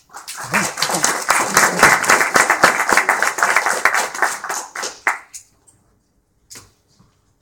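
Small audience applauding for about five seconds, then dying away, followed by a single short knock about a second later.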